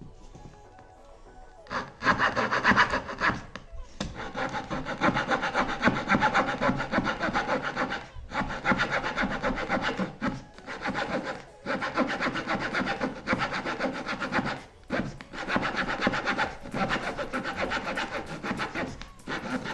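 Multitool saw blade sawing with rapid back-and-forth strokes, starting about two seconds in and broken by a few short pauses.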